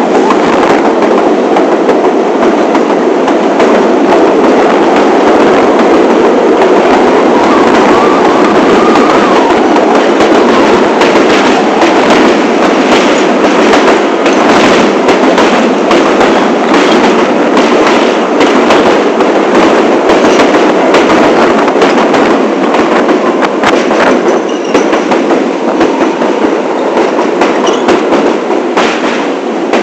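New York City subway train running at speed: steady rumble of wheels on rail with rapid clicks over rail joints and a few brief, faint wheel squeals.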